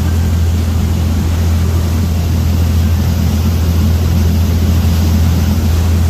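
A boat's engine running steadily, a deep even hum, over the rushing of the churning wake at the stern.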